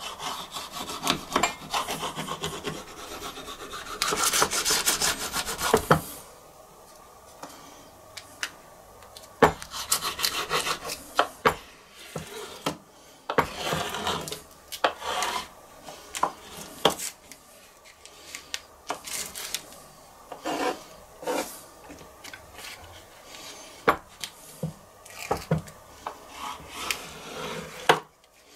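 A knife scraping and cutting through a sheet of dough on baking paper over a wooden cutting board: stretches of rasping strokes with scattered sharp taps, the longest run of steady scraping about four seconds in.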